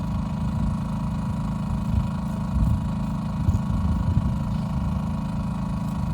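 An engine idling steadily, a low even hum with irregular low bumps over it.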